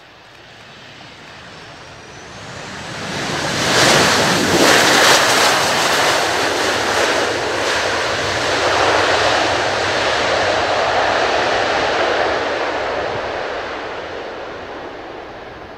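A Boeing 737-800's CFM56-7B jet engines roaring on its landing roll as the airliner passes close by. The roar builds quickly, is loudest a few seconds in, holds for several seconds, then fades as it rolls away.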